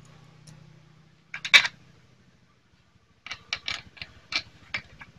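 Small metal bolts clinking and tapping against a Yamaha Jupiter Z engine's aluminium clutch cover as they are set by hand into their holes. There is one loud clink about a second and a half in, then a quick uneven run of clinks near the end.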